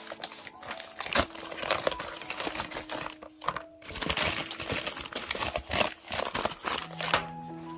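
Packaging of a charger order being handled and opened, with irregular crinkling and rustling throughout.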